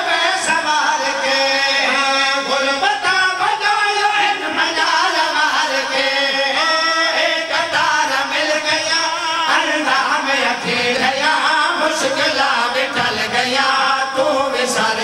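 A boy and several men chanting a sung verse together into microphones, the voices amplified.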